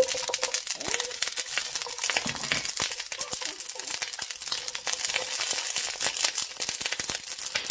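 Whole garlic cloves frying in hot oil in a pan: a steady, dense sizzling crackle.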